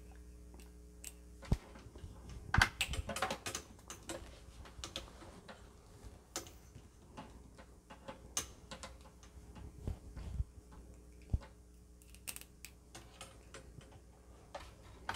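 Irregular small clicks and taps as a multimeter test probe, an alligator-clip lead and a needle are handled and clipped together, with a handful of louder clicks among them.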